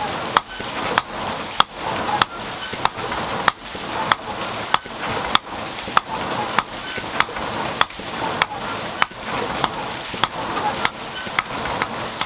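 Hand hammer striking red-hot iron rod on a stone anvil, forging nails: an even run of sharp knocks, a little under two a second, over a steady rushing background.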